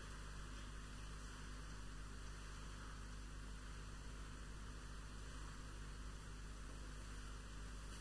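Quiet background: a steady hiss with a low electrical hum and no distinct sound events.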